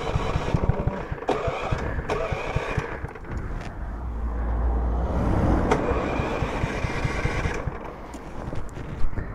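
Home-built kart's 270 cc engine running at low revs with a rapid, uneven chugging beat, swelling to a louder low rumble about halfway through. A few sharp clicks sound, the loudest near the end.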